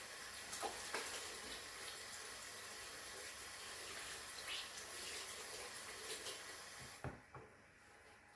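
Kitchen tap running steadily as hands are washed under it, with a few light clicks. The water is shut off abruptly about seven seconds in, followed by a soft knock.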